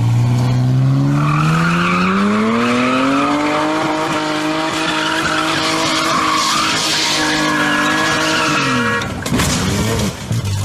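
Ford Mustang V6 engine revving up and held at high revs while the rear tyres squeal and spin in a burnout, then the revs drop. A brief sharp crack comes about nine seconds in.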